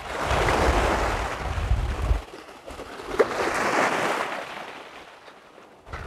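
Small waves breaking and washing over a shingle beach in two surges a couple of seconds apart, fading away near the end, with wind rumbling on the microphone during the first surge and a brief click about three seconds in.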